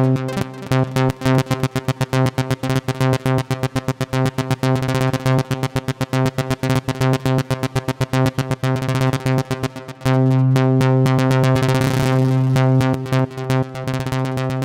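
Vengeance Avenger 2 software synthesizer playing a sawtooth arpeggiator pattern with ratchets, a rapid stream of short repeated notes. About ten seconds in, the notes give way to a steady held chord.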